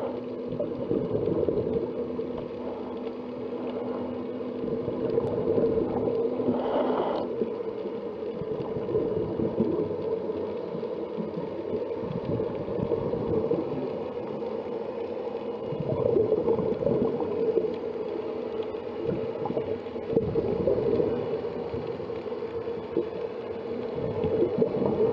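Underwater sound through a diving action camera's housing: a steady muffled hum with watery noise swelling and fading every few seconds, and a short burst about seven seconds in.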